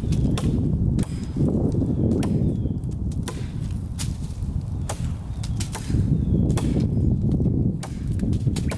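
Machete blade chopping into a small tree trunk, what looks to be poplar, with sharp wooden strikes about once a second. The machete is an 18-inch serrated Harbor Freight machete.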